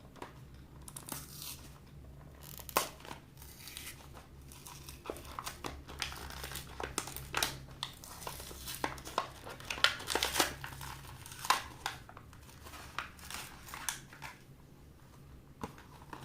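Packaging crinkling and tearing as it is opened by hand, with many sharp crackles and rustles that stop a couple of seconds before the end.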